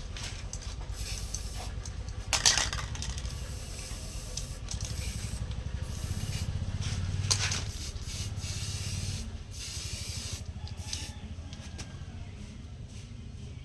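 Coconut grater driven by a washing-machine motor, running with a steady low hum while coconut is scraped against the spinning blade, giving rasping scrapes. The loudest scrapes come about two and a half and seven seconds in.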